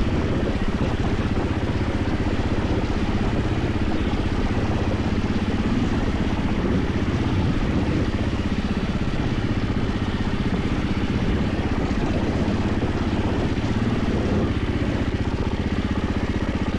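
KTM 450 EXC single-cylinder four-stroke enduro engine running steadily under way on an off-road trail, its firing a fast, even pulse.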